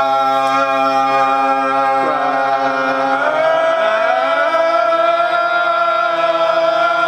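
Choir-like voices singing a long held chord. Between about two and four seconds in, some of the voices slide to new notes, then hold again.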